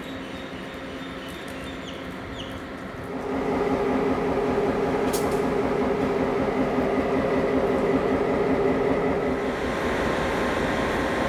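After a quieter first three seconds, a diesel locomotive's engine comes in suddenly and runs steadily with a constant hum.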